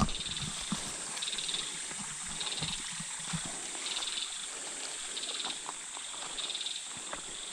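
Short pulsed chirps from a small calling creature repeating about once a second, over a steady background hiss, with soft irregular footsteps on the trail.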